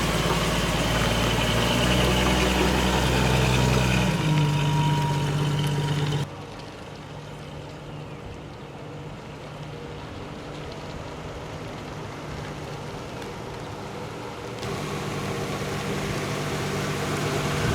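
1965 Ford Falcon's engine running steadily as the car is moved to turn it around. About six seconds in the sound suddenly becomes much quieter, then grows louder again toward the end.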